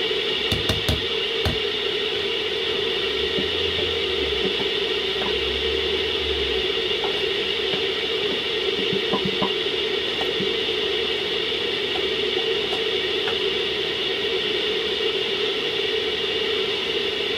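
A pot of soup boiling on a gas hob: a steady hiss with scattered small pops, and a few light knocks of a stirring spoon against the pot about a second in.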